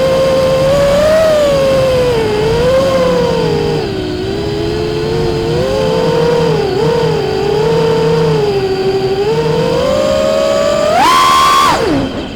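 FPV quadcopter's electric motors whining, the pitch wavering up and down with the throttle. About eleven seconds in the pitch shoots up sharply, then quickly drops as the motors wind down near the end.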